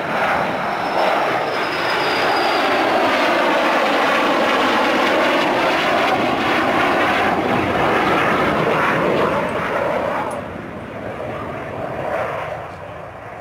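Two Sukhoi Su-22 fighter-bombers passing overhead, their Lyulka AL-21F-3 turbojets making a loud jet roar with a slowly sweeping, phasing quality. A thin high whistle slides down in pitch in the first few seconds; the roar swells, holds, then fades about ten seconds in as the jets move away.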